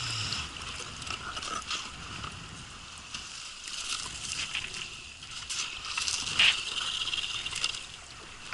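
Ice crackling and scraping as it is broken up, a dense run of small clicks and grinding scrapes, with one sharp crack about six and a half seconds in.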